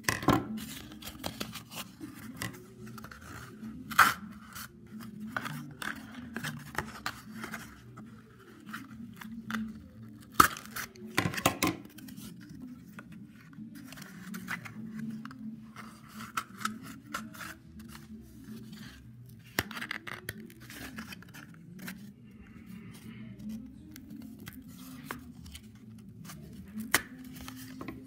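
Scissors snipping into a cardboard toilet-paper tube, with irregular sharp snips and the tearing and rustling of the cardboard as it is cut and handled.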